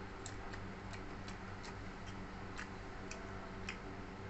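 Chewing food close to the microphone: faint, irregularly spaced clicks a few times a second over a steady low electrical hum.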